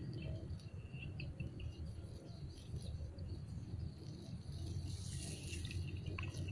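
Outdoor ambience: a low rumble on the microphone with faint, scattered chirps of insects and birds. A short rustling hiss about five seconds in.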